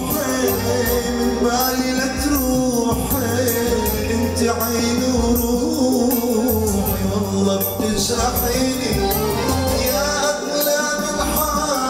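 Live music: a man singing through a microphone over an electronic keyboard playing a sustained accompaniment with a steady programmed drum beat.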